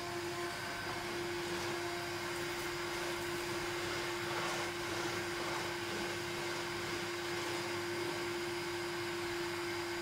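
1982 Hitachi CV-7405 Stowaway Mk1 cylinder vacuum cleaner running steadily while vacuuming carpet: a constant motor tone over a rush of air.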